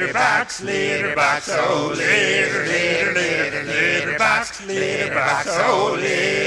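A cappella male vocal quartet singing close harmony without recognisable words, in short phrases.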